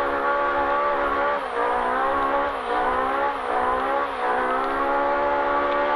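Polaris RZR Pro R's four-cylinder engine running hard at high revs, its pitch dipping briefly and climbing back several times as the throttle is lifted and reapplied.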